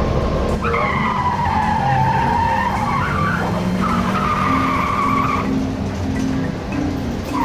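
A bus riding along with a low rumble. A long, high, wavering squeal starts about half a second in, dips and rises in pitch, and comes again later on.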